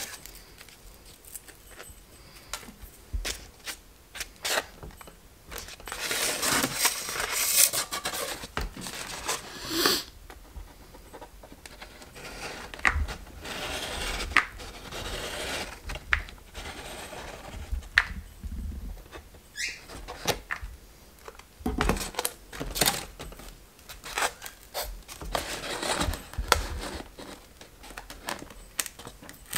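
Hands working on a foam board box, picking and peeling excess hot glue from its seams: irregular bursts of scraping and rustling with light clicks and knocks, and one short rising squeak about two-thirds of the way through.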